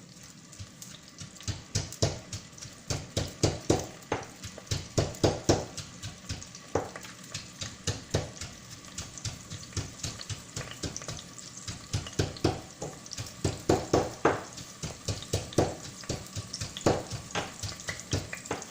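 Onions sautéing in hot oil with a low steady sizzle, while a utensil knocks and scrapes against the pan in quick irregular clusters of strokes.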